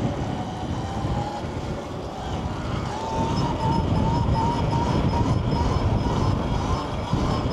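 Wind buffeting the microphone while riding an electric dirt bike, with the motor's whine rising in pitch in the first second and then holding at a steady pitch from about three seconds in.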